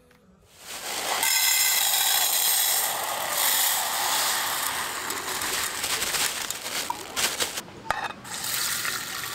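Water running for about six seconds, then stopping, followed by a few light clicks of metal cookware.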